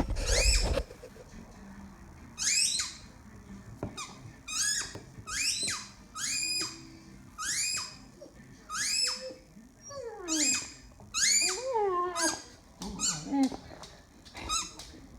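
A dog chewing a squeaky chew toy, making it squeak over and over, about once a second, each squeak rising and falling in pitch.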